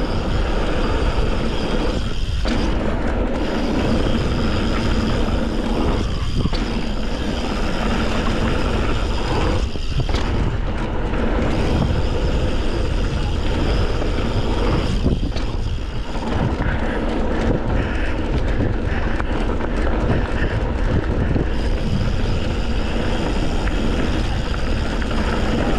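Wind buffeting the microphone of a bike-mounted or rider-worn camera as a mountain bike is ridden fast down a trail: a loud, steady rushing rumble.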